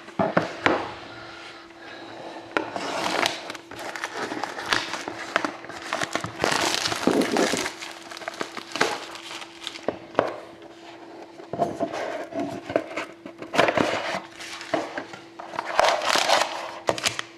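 Crinkling plastic wrap and rustling cardboard as a sealed box of hockey trading cards is unwrapped and opened by hand, with irregular rustles and small clicks and snaps.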